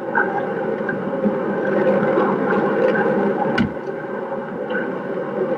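Steady, muffled background noise of a room recording during a break in the recitation, with one sharp click about three and a half seconds in.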